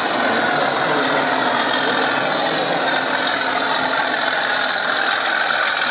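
O gauge model diesel locomotive hauling a train of vans along the track: a steady mechanical running noise, with a faint low hum that fades out shortly before the end.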